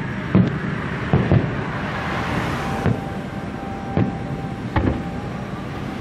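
Distant aerial fireworks shells bursting: about five dull booms, two of them close together about a second in, over a steady rush of road traffic.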